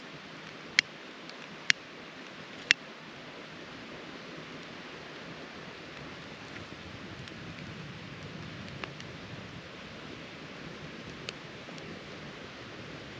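Campfire of split wood burning in a stone fire ring over a steady rushing sound. It cracks sharply three times in the first three seconds and gives a couple of fainter pops later.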